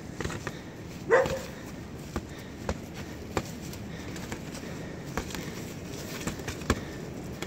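Boxing gloves smacking on gloves and bodies in a sparring exchange: several sharp slaps spread through. About a second in comes one loud short cry, the loudest sound.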